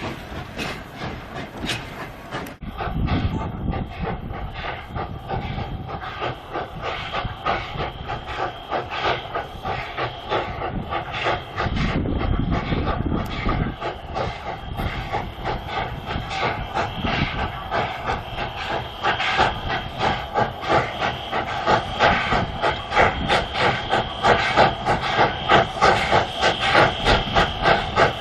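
Steam locomotive working, with steady steam hiss and a regular beat of exhaust chuffs, about two a second, that grows louder over the last several seconds.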